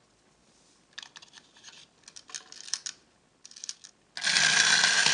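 Plastic LEGO parts clicking as pieces are handled on the car, then about four seconds in a LEGO wind-up motor starts running loudly, its clockwork gears giving a steady whirr.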